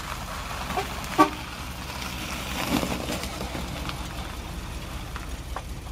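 1958 Cadillac Fleetwood Sixty's V8 running as the car rolls slowly past. A short, loud toot, likely its horn, comes about a second in.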